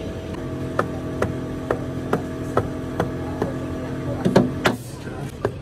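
Evenly spaced sharp knocks, about two a second, over a steady mechanical hum; the hum and the regular knocking stop together a little before the end, followed by a couple of looser knocks.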